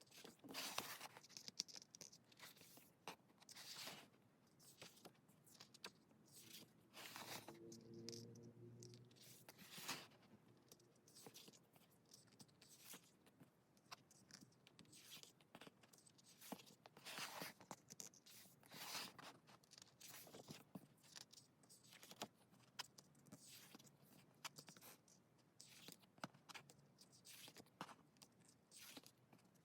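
Faint swishes and rustles of stiff album photobook pages being turned and handled, coming irregularly every second or two.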